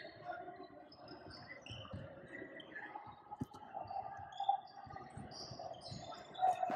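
Basketball sneakers squeaking on a hardwood gym floor in many short, high chirps as players cut and stop, with a couple of dull thuds of the ball.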